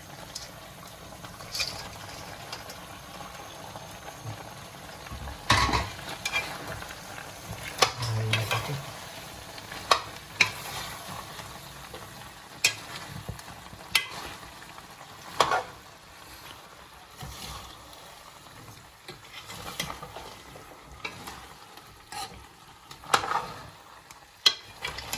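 Fried chicken pieces being stirred into thick chilli chicken gravy in a pan: a steady sizzle, with sharp clacks of the spoon against the pan at irregular moments.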